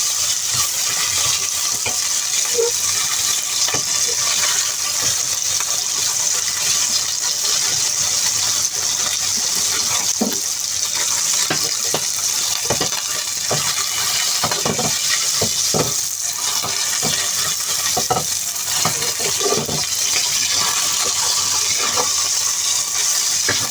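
Pork chop sizzling in hot oil in a frying pan over high heat, a steady hiss. Scattered short clinks and knocks come in, mostly in the middle of the stretch.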